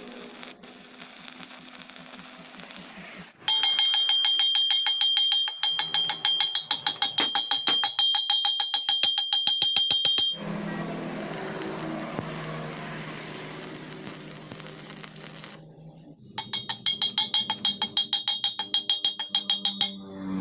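Background music with a fast, even percussive beat and steady high tones, broken off about ten seconds in by some five seconds of steady hiss before the beat returns.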